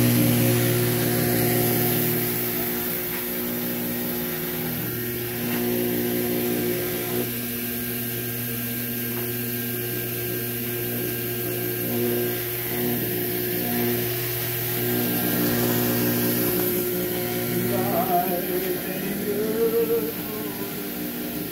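Submersible well pump running in a drum of water during a bench test, giving a steady electric-motor hum. The hum cuts off about 18 seconds in, followed by a few brief wavering tones.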